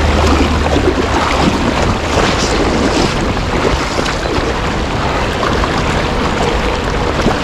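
Steady rush of fast-flowing creek water close to the microphone.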